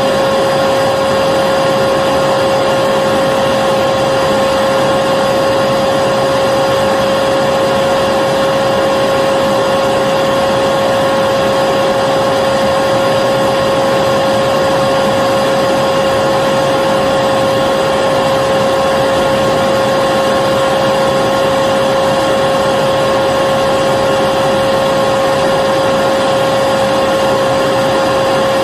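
Vacuum cleaner running steadily: a constant, unchanging motor whine over the rush of air.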